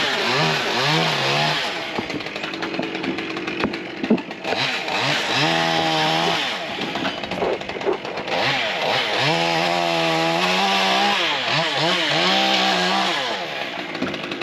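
Stihl chainsaw running and being revved up and down repeatedly, with longer spells at high speed, one near the start and one from about eight seconds in, dropping back toward idle between them.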